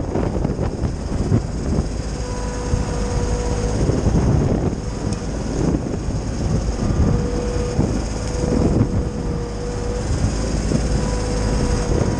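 Titan wood chipper running beside a Kioti subcompact tractor, chipping pine branches. A steady machine hum carries a faint whine that comes and goes, and the noise swells irregularly.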